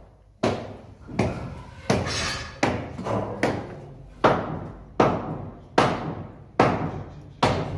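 Hammer blows on masonry at a steady pace, about ten strikes a little under a second apart, each dying away with an echo off bare concrete and brick walls.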